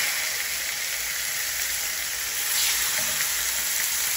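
Thin raw turkey steaks sizzling as they hit a very hot ridged grill pan. The sizzle is steady and loud, and swells about two and a half seconds in as a second steak is laid on.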